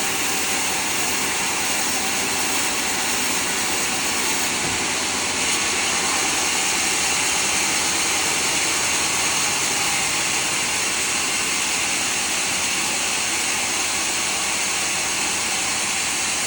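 Sawmill saw running steadily through a large teak log, an even, hissing machine noise, a little louder in the middle.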